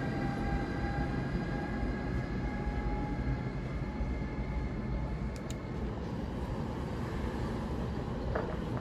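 SEPTA Regional Rail train pulling out behind an ACS-64 electric locomotive, with a faint high whine that fades over the first few seconds over a steady low rumble.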